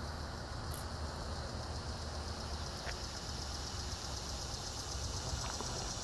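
Outdoor summer ambience: a steady low rumble under a high, pulsing insect buzz that grows stronger in the second half, with a few faint ticks.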